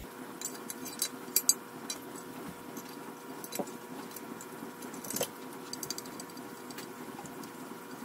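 Light metal clicks and clinks as a metal EGR tube is handled and fitted into an intake manifold half, with a pair of sharper taps about a second and a half in and another a little after five seconds.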